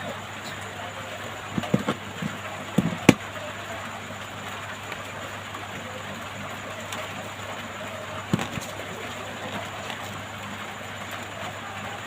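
A few small sharp clicks and taps of tools against a phone's display as it is prised off, a cluster about two to three seconds in and one more near eight seconds, over a steady background hiss.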